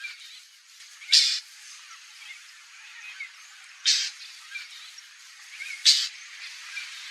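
White-banded mockingbird giving short harsh calls, three in all, about two to three seconds apart, with fainter high chirps in between.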